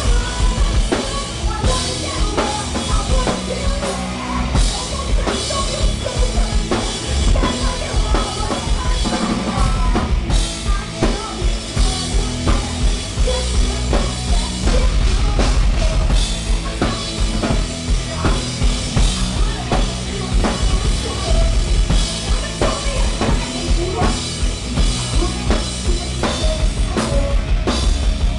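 Live rock band playing loud, with a pounding drum kit, kick drum and snare, driving a steady beat.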